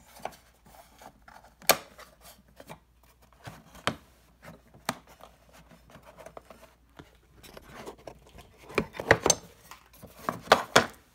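Micrometers and their wooden cases being handled in a metal toolbox drawer: scattered clicks and knocks, with a cluster of sharper clacks near the end.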